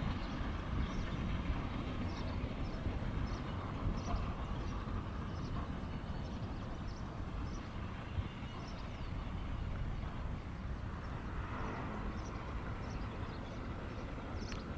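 Eurocopter EC145 (BK117 C-2) helicopter running on the ground with its rotors turning: a steady low rumble, with faint ticks repeating about every half second.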